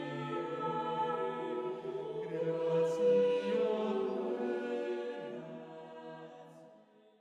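Choir singing in long held chords over a steady low line, fading out over the last couple of seconds.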